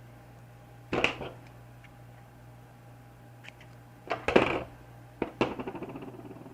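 Short clatters and rustles of small objects handled on a workbench, in three groups, loudest about four seconds in, the last trailing off in a quick rattle.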